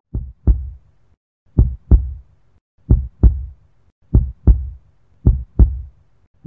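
Heartbeat sound effect: a steady lub-dub, two low thumps close together repeating a little over once a second.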